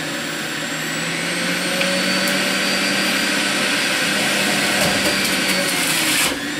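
Breville Ikon Multi-speed Juice Fountain, a centrifugal juicer, running with its motor and spinning cutting basket whirring steadily as pieces of apple are pushed down the feed chute. The hum's pitch steps up slightly about half a second in, it grows a little louder a second or so later, and it dips briefly just before the end.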